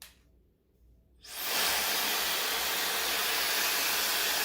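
Wind Magic Styler hair dryer brush, fitted with its round brush head, switching on about a second in. Its blower spins up within a fraction of a second to a steady hiss of rushing air.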